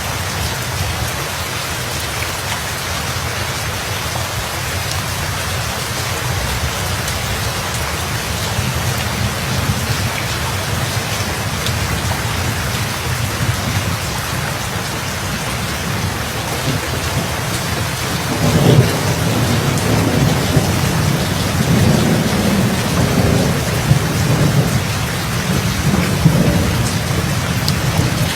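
Steady heavy rain, with rolling thunder rumbling in about two-thirds of the way through and swelling several times.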